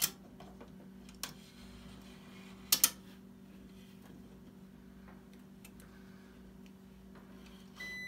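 A few sharp clicks from the dryer's timer/selector switch being worked by hand, the loudest a quick double click about three seconds in, over a low steady hum. Near the end the clamp meter's continuity beep comes on and holds a steady high tone: contacts C and H of the switch have closed.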